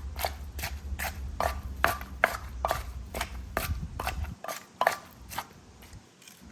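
Pestle pounding ingredients in a mortar to bring out their juice, in quick, regular knocks about two to three a second, thinning out near the end. A low steady hum underneath stops about two-thirds of the way through.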